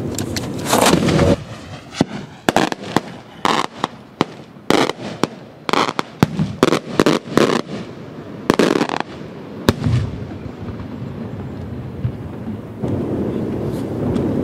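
Beraq shells bursting: a heavy boom about a second in, then a rapid run of many sharp, loud cracks over about seven seconds, ending with a single crack near the ten-second mark.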